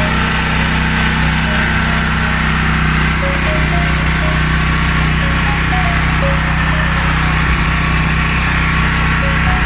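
Toyohama TH3500 generator's 8 hp engine running steadily at a constant speed.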